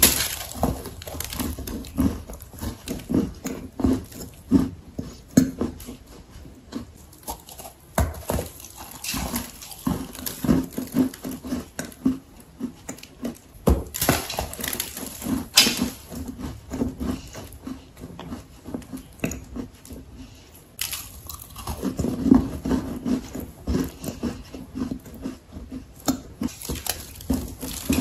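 Lumps of dry, sandy halva clay being bitten and chewed, with gritty crunches about twice a second. A louder bite into a fresh lump comes about halfway through.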